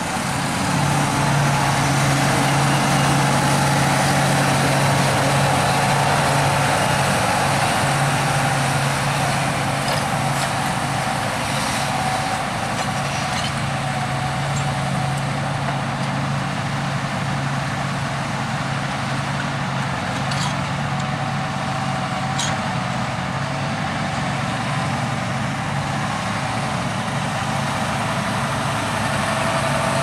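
Diesel engine of a John Deere 8R-series tractor running steadily under load while pulling a multi-furrow reversible plough through the soil.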